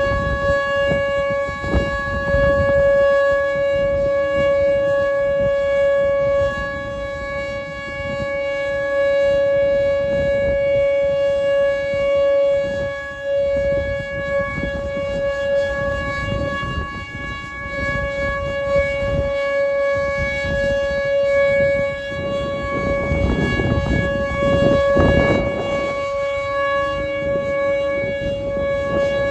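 Outdoor tornado warning siren sounding a steady wail: one held tone with strong overtones, its strength wavering slightly. This is a noon siren test.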